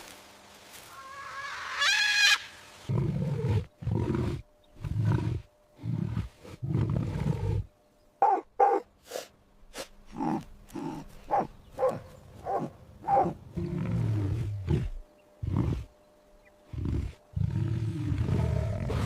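A big cat roaring in a long series of short, deep calls with short gaps between them. A brief high-pitched call comes about two seconds in.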